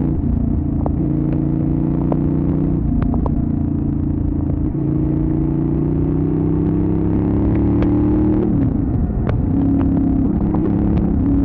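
Benelli Leoncino 800 Trail's parallel-twin engine running under way at a steady pace, its pitch creeping slowly upward. About eight and a half seconds in, the note dips briefly, then settles back into a steady run.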